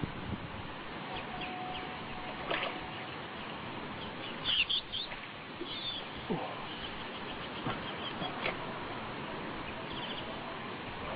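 Outdoor ambience: a steady hiss with scattered short bird chirps and calls, and a louder cluster of chirps about four and a half seconds in.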